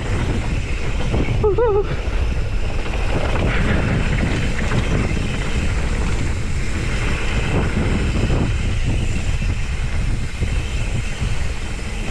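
Wind buffeting the camera microphone over the rumble and rattle of a mountain bike rolling fast down a dirt singletrack. A brief wavering squeal comes about a second and a half in.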